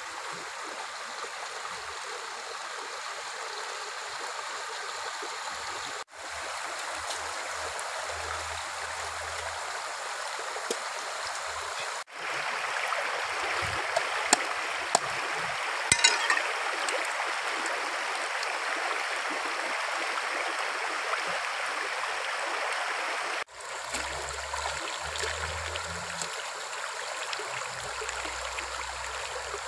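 Shallow, rocky stream running steadily, a rushing, gurgling flow that breaks off briefly three times. A few short, sharp sounds stand out near the middle as the goose is washed and scraped in the water.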